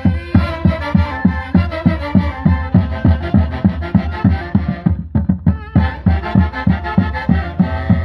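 Live saxophone band with a bass drum playing a fast Andean folk dance tune, the drum beating about four to five times a second. The saxophones break off briefly about five seconds in while the drum keeps going.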